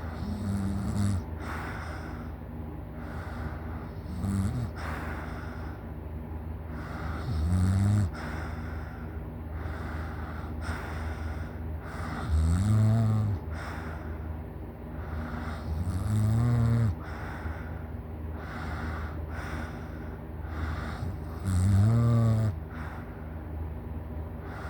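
A sleeping person snoring loudly: a harsh, pitched snore roughly every four to five seconds, six in all. The later snores are longer.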